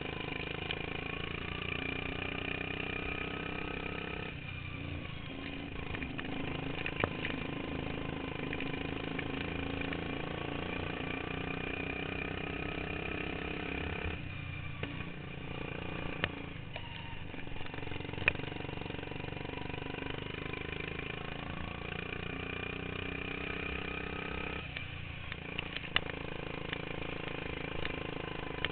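Modified racing lawn mower engine running hard, its pitch rising and falling as the throttle is opened and eased several times, with a few sharp knocks.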